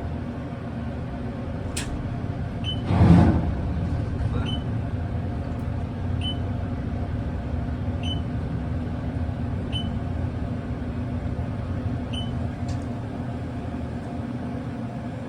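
Otis machine-room-less traction elevator car travelling between floors: a steady hum, a loud short whoosh about three seconds in, and faint short high chirps about every two seconds.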